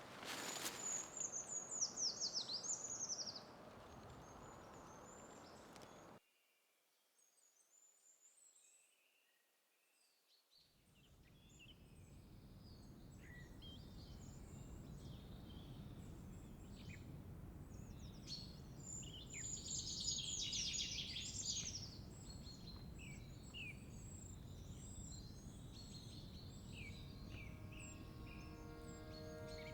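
Wild birds singing and calling in woodland, with high chirps and short trills from several birds. The sound cuts out for a few seconds about six seconds in, then the birdsong returns, busiest around twenty seconds in, and soft music comes in near the end.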